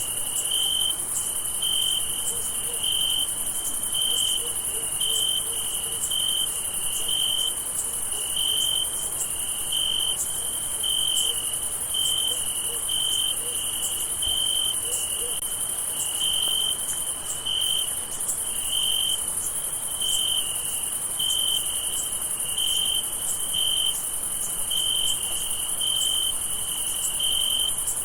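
Night chorus of crickets: one cricket chirps in a steady run of short, evenly spaced pulses over a continuous high-pitched trill of many other insects.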